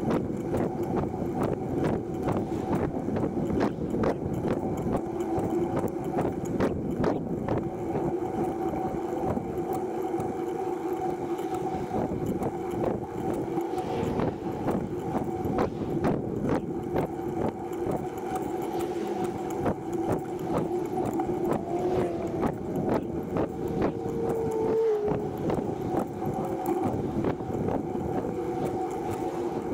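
Running noise of a TerraTrike recumbent tricycle rolling along a paved path: a steady hum with continual small rattles and clicks. There is a brief squeak about 25 seconds in.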